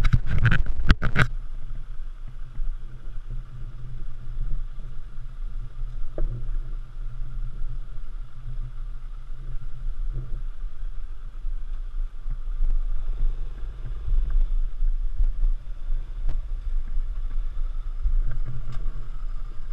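Off-road motorcycle running, heard with a steady low rumble of wind on the microphone; a few sharp knocks in the first second and occasional single clicks later.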